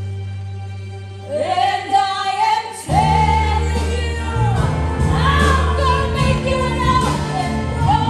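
Stage musical number: a held chord fades, a singing voice comes in alone about a second in, and the full musical accompaniment comes back in strongly about three seconds in while the singing goes on.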